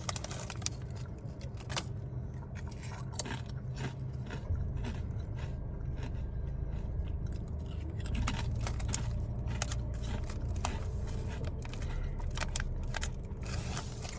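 A person crunching and chewing Ruffles ridged potato chips: many short, crisp crackles at an irregular pace over a steady low hum.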